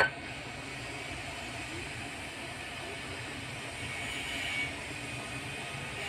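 Hot air rework station blowing steadily, heating a phone motherboard's shield to melt the solder holding it down. The airflow swells slightly about four seconds in.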